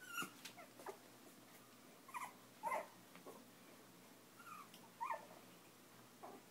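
Young Chinese Crested puppies giving a string of short, high squeaks and yelps, about eight in all, scattered through the few seconds.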